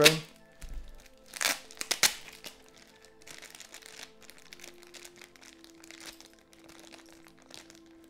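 Plastic packaging crinkling as it is handled, with two louder crackles about a second and a half and two seconds in, then softer rustling. Soft background music with held notes runs underneath.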